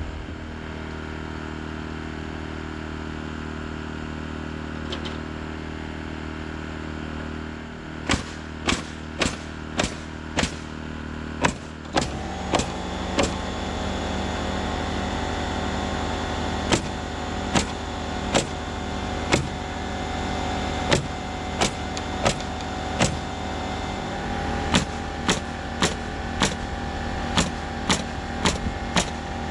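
Pneumatic framing nailer firing a long series of nail shots, beginning about eight seconds in and coming in quick runs of two or so a second with short pauses, over the steady hum of an air compressor that steps up louder a few seconds after the nailing starts.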